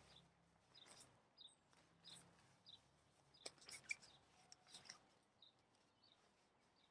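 Faint rustling and light clicks of nylon tent fabric being handled, loudest between about three and a half and five seconds in. A bird's short high chirp repeats about every two-thirds of a second behind it.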